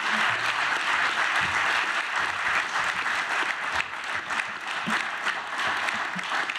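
Audience applauding: a dense, steady patter of many hands clapping that slowly dies down.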